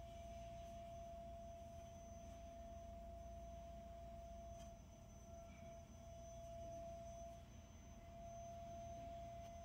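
Near silence: faint room tone with a steady thin whine.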